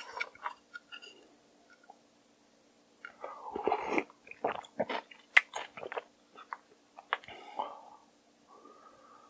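A spoon clinks and stirs in a glass bowl of mulhoe, Korean cold raw-fish soup. About three seconds in comes a spoonful slurped from the broth, then close-miked chewing of the seafood and vegetables, with sharp crunchy clicks.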